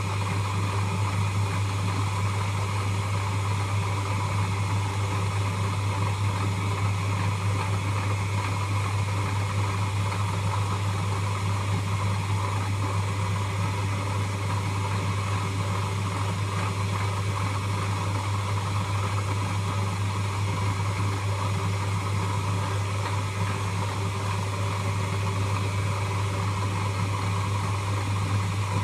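Lathe running steadily, a constant low hum with a noisy whir over it.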